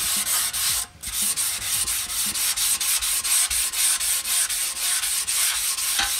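600-grit sandpaper on a hand sanding pad rubbed back and forth over a primed motorcycle petrol tank, a quick even rasping of about three strokes a second with a brief break about a second in. The sanding is flatting high spots and scratches in the primer, shown up by a dry powder guide coat.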